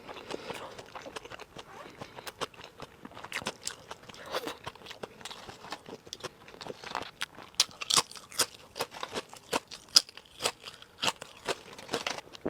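Close-miked chewing of sushi: many short wet clicks and small crunches in an irregular run, some louder than others, as the mouthful is bitten and chewed.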